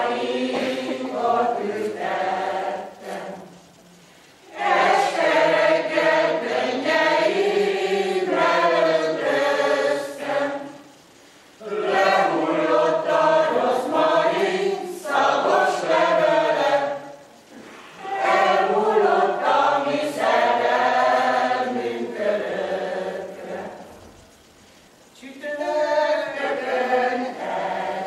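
Mixed choir of men and women singing a Hungarian folk song unaccompanied, in long phrases with four short breaks between them.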